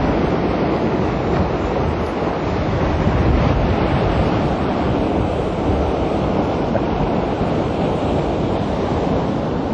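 Sea surf breaking and washing over coastal rocks, with wind buffeting the microphone: a steady, loud rushing.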